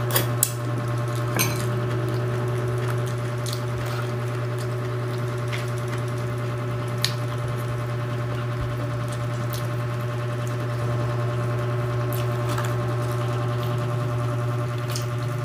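A steady low hum runs throughout, with a few soft clicks and smacks from chewing and eating by hand scattered over it.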